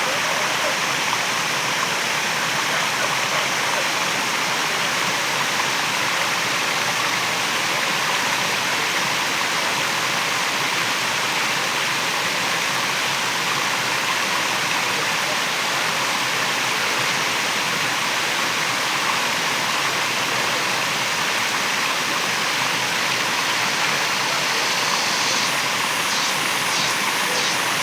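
Waterfall: water falling and splashing in a steady, unbroken rush. Near the end a faint, rapid, regular ticking joins in.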